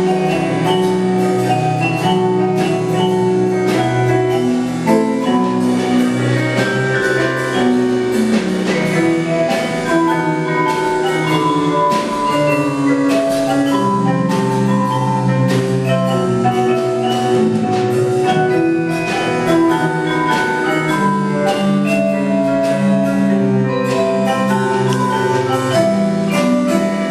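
Mallet percussion ensemble playing a swing tune: vibraphone and marimba carrying the melody and chords over a drum kit with cymbal and drum strokes, with piano.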